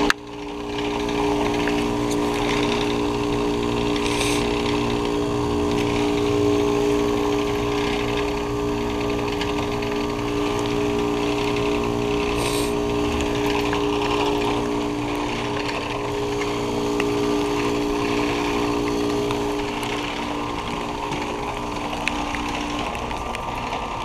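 Outdoor heat pump units running in the cold: a steady compressor hum under a broad hiss and fan rush. One of them is a 2021 Carrier 5-ton heat pump going through its defrost cycle. Part of the hum drops out near the end as a unit shuts off.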